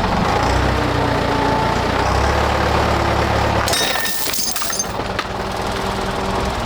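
Tractor engine running under load on a tow chain, with a low steady drone. About four seconds in, a sudden noisy crunching burst lasts about a second while the engine's low note drops, then the engine carries on more lightly.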